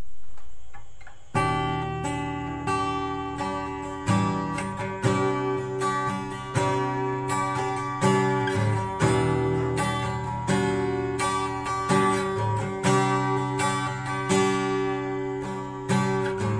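Acoustic guitar strummed in a slow, even pattern, each chord ringing on until the next stroke: the solo instrumental intro of a slow ballad.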